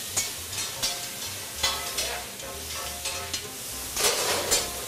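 Meat and vegetables sizzling on a large round flat-top Mongolian barbecue grill, with long metal spatulas scraping and tapping against the grill surface as the food is stirred, several sharp strikes through a steady hiss.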